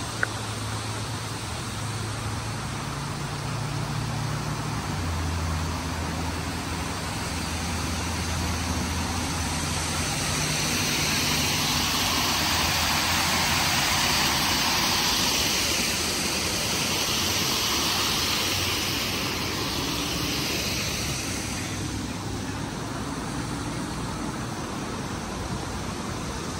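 Steady rush and splash of water pouring over an artificial rock waterfall, louder for several seconds around the middle. Underneath runs a low hum of road traffic, most noticeable in the first half.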